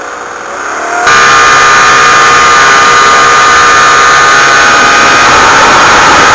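Homemade turbojet engine running on a test stand, a loud steady roar with a high whine that comes on suddenly about a second in and overloads the microphone.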